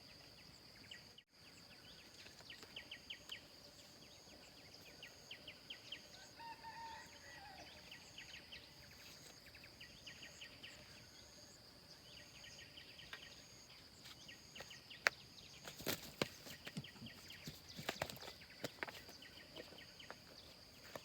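Quiet outdoor ambience: a steady high whine with a faint chirp repeating about once a second over it, bird calls and rapid clicking trills, and a few sharp clicks or knocks in the second half.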